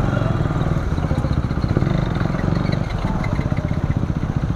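Motorcycle engines running at low speed, a steady low pulsing with no revving.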